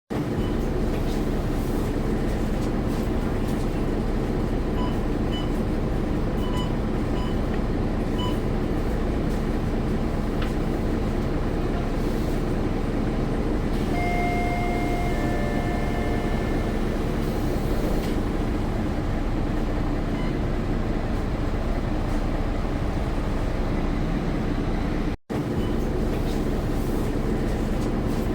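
A bus's engine and cabin drone runs steadily on board. It is joined by a series of short beeps, then about halfway through by a two-note door-closing chime falling in pitch that rings for a couple of seconds.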